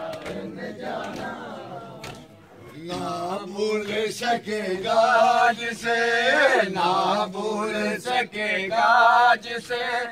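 Men's voices chanting a Shia matam mourning lament in long wavering notes, growing loud about three seconds in, with sharp slaps of hands beating chests at a steady pace, about three every two seconds.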